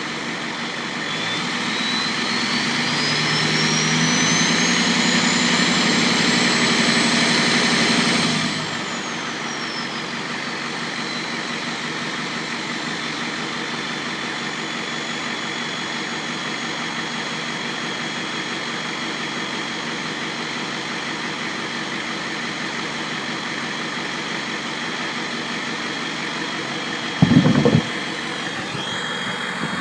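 Ford F350's 7.3L IDI V8 diesel revving up as its Holset turbo whistles, the whistle rising in pitch for several seconds as the turbo spools, then sliding down as the engine drops back to idle. A faint turbo whine stays over the idling diesel, and a brief loud burst comes near the end.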